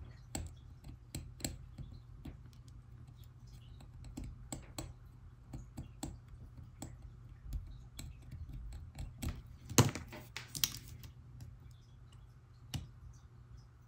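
Small metal repair tools, tweezers and a soldering iron, clicking and tapping against an opened iPhone 2G and the work surface during soldering. A louder clatter comes about ten seconds in, and a low steady hum runs underneath.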